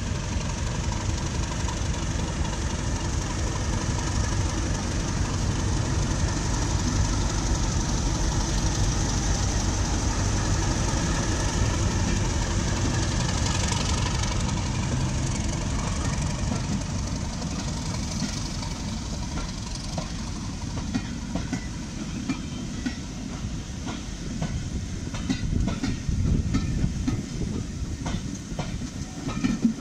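Class 37 diesel locomotive's English Electric V12 engine running steadily as it hauls a train past, fading after about halfway. The coaches then roll by, their wheels clicking over the rail joints.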